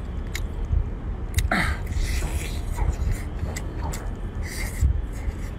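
Someone eating cooked lobster meat close to the microphone: scattered wet mouth clicks and a short vocal sound about a second and a half in, over a steady low rumble.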